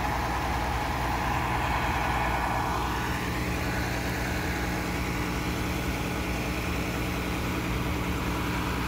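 Heavy vehicle engine idling steadily, a low even hum, with a higher whir over it for the first three seconds or so that then fades.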